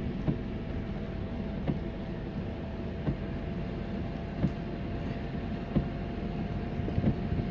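Steady low rumble of a car running, heard from inside the cabin, with a faint steady hum and a soft tick about every second and a half.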